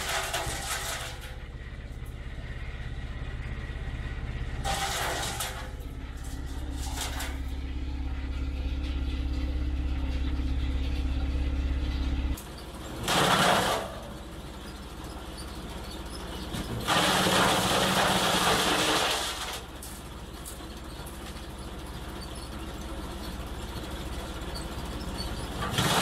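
Eberl SH 20 stationary chopper running with a steady low hum, with several loud rushing bursts. About halfway through, the hum drops away suddenly and a quieter steady running sound continues.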